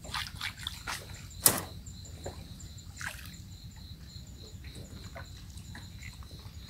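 Water splashing and sloshing, with several sharp knocks, the loudest about a second and a half in, over a faint steady high whine.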